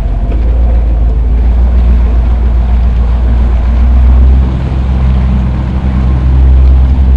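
Jeep engine running steadily under load as it drives through deep mud and water, with the mud tire churning and splashing. The engine eases off about four and a half seconds in, then picks up again about a second and a half later.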